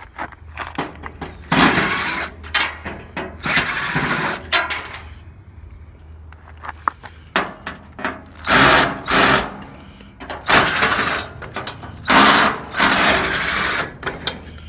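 A handheld power tool, of the drill kind, run in about five short bursts of one to two seconds each, with sharp metal clicks and knocks between them, while a pool heater is being taken apart.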